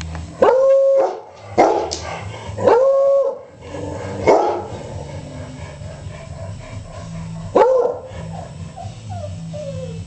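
A dog calls five times: short barks mixed with two longer, howl-like barks held on one pitch, spread over the first eight seconds. Near the end come a few faint, falling whimpers.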